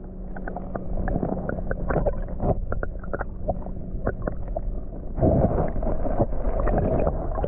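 Muffled underwater sloshing and gurgling heard through a submerged camera, with many small clicks and pops; it gets louder about five seconds in.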